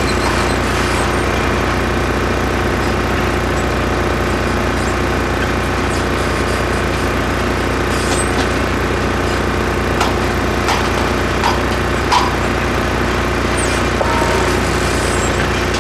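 A construction machine's engine running at a steady pitch, with a few sharp clinks and knocks about halfway through.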